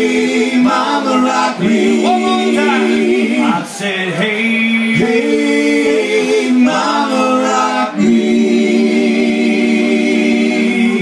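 Live band singing: several voices holding long notes with vibrato in phrases a few seconds long, over the band's electric keyboard.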